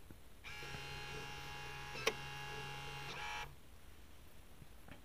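Wi-Fi smart door lock's motor running for about three seconds as it drives the bolt to lock, a steady whine with a sharp click about halfway through.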